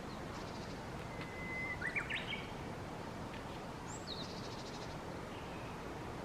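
Japanese bush warbler singing its "hoo-hokekyo" song: a long steady whistle about a second in, then a quick rising-and-falling flourish. A brief high trilled call follows about four seconds in, over a steady background hiss.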